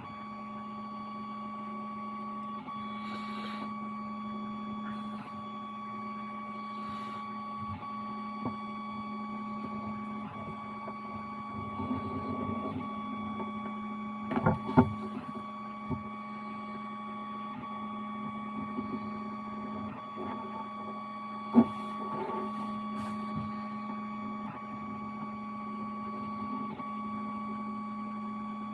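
Steady machine hum with a few sharp knocks, the loudest about halfway through and another a little later.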